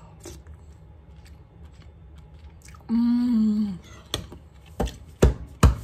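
A woman's appreciative "mmm" while tasting stew, held for about a second and falling slightly in pitch. It is followed by four sharp clicks of a metal spoon knocking in a ceramic bowl.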